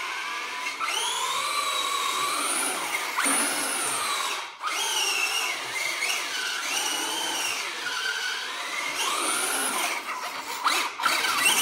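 ECX Torment 1/10 radio-controlled truck's electric motor and gears whining, the pitch rising and falling as the throttle is worked, with a short cut-off about four and a half seconds in.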